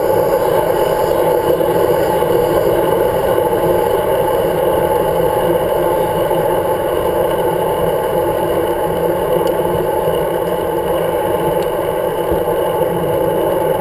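Steady rush of wind and road noise from a road bike rolling along at speed, picked up by a handlebar-mounted camera, with no break or change.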